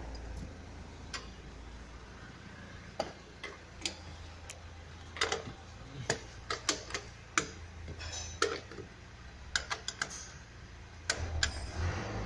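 Scattered sharp metallic clicks and knocks from a lug wrench loosening a car's wheel nuts, some single and some in quick runs, over a faint low hum.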